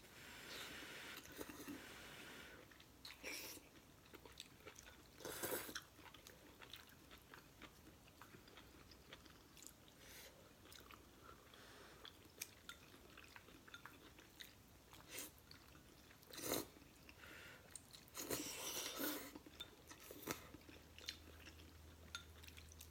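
Quiet, close-up chewing and mouth sounds of someone eating instant noodles, with scattered small clicks and a few short, louder noisy bursts.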